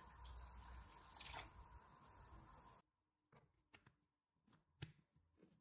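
Faint pouring of milk into a plastic blender jug onto rusks, cutting off abruptly about three seconds in. Then a few light plastic clicks as the blender lid is fitted onto the jug.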